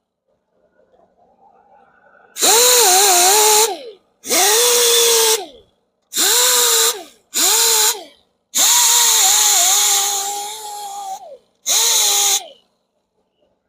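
Power grinder spinning a surface-conditioning disc against an alloy wheel spoke, run in six short bursts. Each burst is a loud whine with a hiss that drops in pitch as the tool spins down, and the fifth is the longest.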